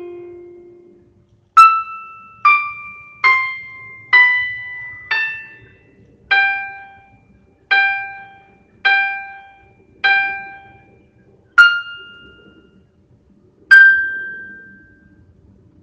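A slow solo melody of single struck keyboard notes with a bell-like ring, about a dozen of them, each sounding sharply and fading away before the next.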